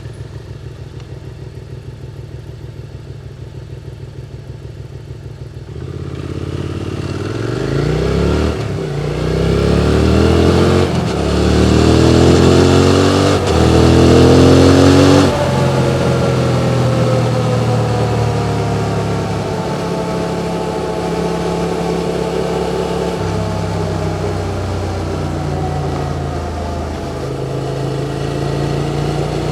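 QJ Motors SVT650X parallel-twin engine with an Arrow Racetech slip-on exhaust, idling for about six seconds before pulling away hard. Its pitch climbs through three upshifts, then the throttle closes about halfway through and the engine note falls and settles into a steady cruise.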